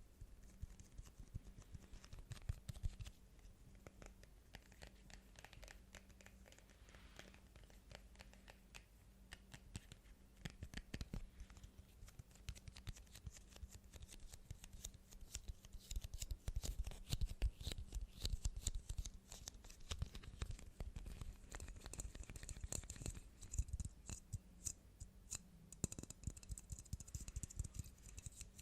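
Close-miked ASMR tapping and scratching: many quick, irregular taps and scratches on objects, growing busier and louder about halfway through, over a faint steady low hum.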